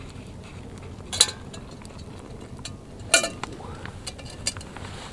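A metal cooking pot clinking as it is handled while boiling water is poured from it into a freeze-dried meal pouch. There are two sharp metallic clinks with a short ring, about a second in and about three seconds in, then a lighter tap.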